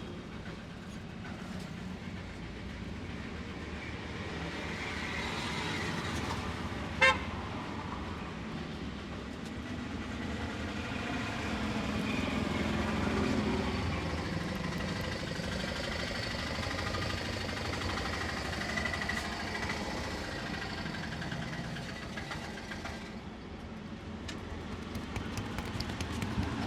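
Street traffic noise, with one short, loud vehicle horn toot about seven seconds in.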